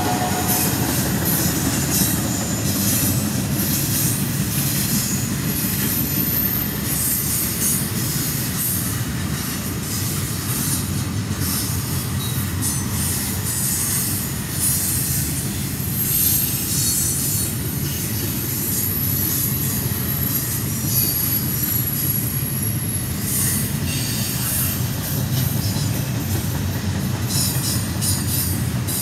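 Double-stack container train's well cars rolling past: a steady rumble of steel wheels on rail with running clatter, and thin, high wheel squeals that come and go several times.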